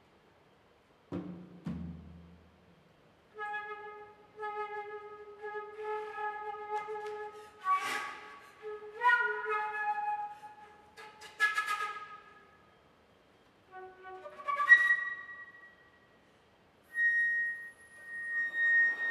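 A couple of low janggu drum strokes, then a solo flute playing short ornamented phrases separated by brief pauses, ending on a long high held note.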